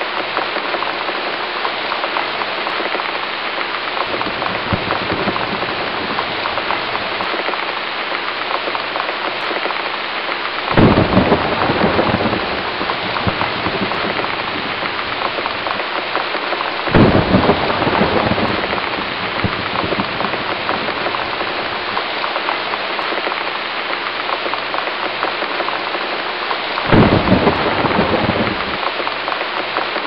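Steady, heavy rain with three rolls of thunder breaking over it: about a third of the way in, just past halfway, and near the end, each swelling for about two seconds.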